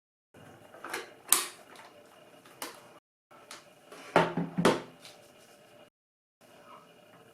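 Sharp plastic clicks and knocks from a Polaroid One Step 2 i-Type camera being handled after its film shield bezel is refitted, the loudest a close pair about four seconds in.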